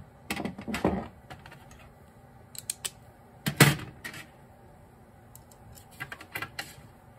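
Metal hand tools clinking and clattering against a metal tray as they are sorted and picked up, in several short bunches with the loudest a little over three and a half seconds in. A shop heater hums faintly underneath.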